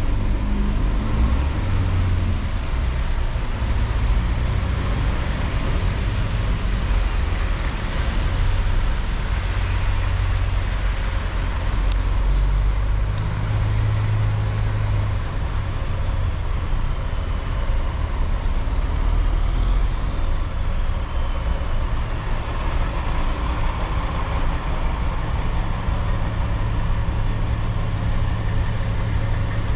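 A car driving through city traffic: a steady low engine and road rumble with a broad tyre hiss.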